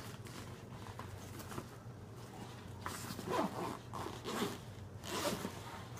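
Zipper on a Canon camera backpack being pulled open in a few short rasping strokes in the second half, amid the rustle of the bag's nylon fabric being handled.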